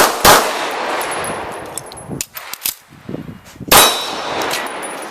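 Pistol shots fired while shooting a practical-shooting stage: two in quick succession at the start, then a single shot about three and a half seconds later, with a few lighter sharp ticks in between.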